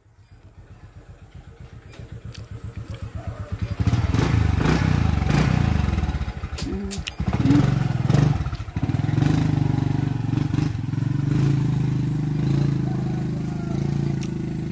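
Small motorcycle engine running, its fast firing pulses growing louder over the first few seconds, then a steady loud engine note that rises and falls briefly around the middle as the bike moves off.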